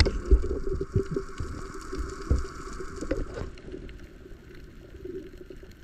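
Underwater sound picked up through a camera's waterproof housing: muffled water movement with scattered sharp clicks and knocks, easing off and growing quieter about three and a half seconds in.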